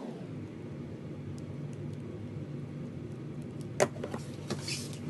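Shengshou mirror cube's plastic layers being turned by hand: a few sharp clicks late on, the first the loudest, then a short rasp. Under it runs a steady low hum.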